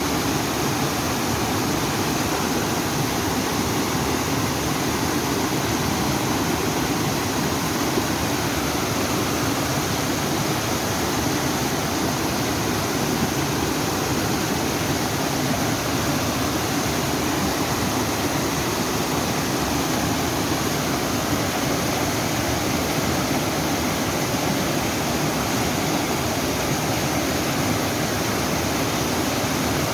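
Waterfall splashing into a mountain stream, a steady, unbroken rush of water.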